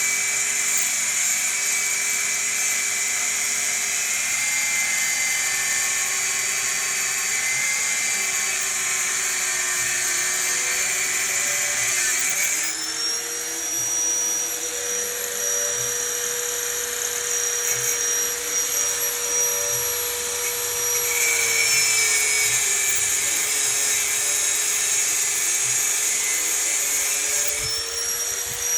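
High-speed power tool running continuously with a high whine. Its pitch steps up about twelve seconds in, falls back a little past twenty seconds, and climbs again near the end.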